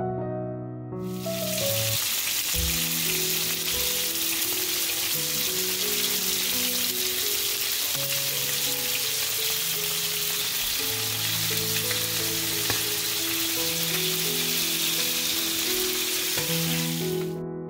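Marinated tandoori chicken pieces sizzling as they fry in a pan, a steady hiss that starts about a second in and cuts off just before the end.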